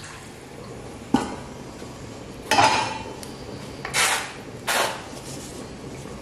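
Stainless-steel pot lids and pots clanking on a stovetop: four metal knocks, the second the loudest with a brief ring.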